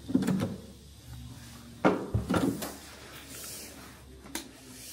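Hotel room door being opened: the lever handle and latch clatter at the start, then a sharp click and a low thud just under two seconds in as the door swings and knocks, and one more short click near the end.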